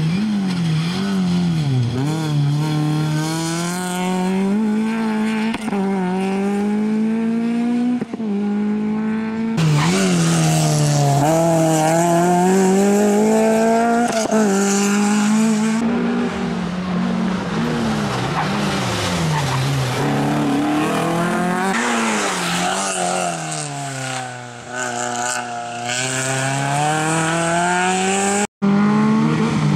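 Peugeot 306 rally car's engine revving hard, its pitch climbing and dropping again and again as the car accelerates and slows through the course. The sound changes abruptly a few times, with a brief dropout near the end.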